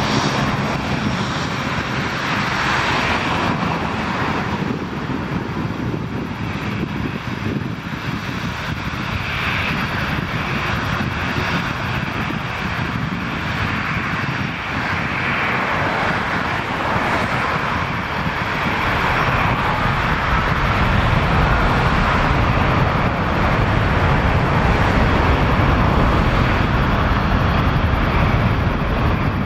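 Boeing 757-200's twin jet engines running at close range: a steady roar that grows louder in the second half, with a faint rising whine as thrust builds for the takeoff roll.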